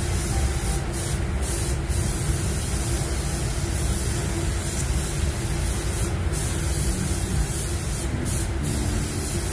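Gravity-feed paint spray gun hissing steadily while spraying pearl white basecoat, the hiss dropping briefly about six times as the trigger is eased between passes. A steady low rumble runs underneath.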